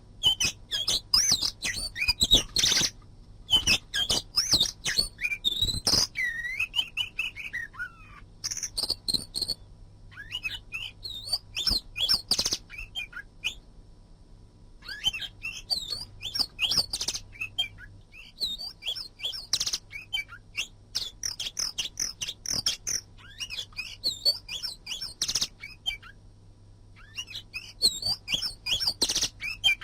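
Oriental magpie-robin (kacer) singing: a rapid run of varied whistled and chattering phrases, broken by a few short pauses.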